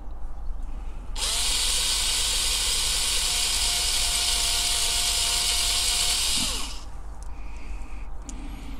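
Cordless battery drill drilling out a rivet head on a diecast toy car's base plate. The motor spins up about a second in, runs steadily with a high whine for about five seconds, then winds down.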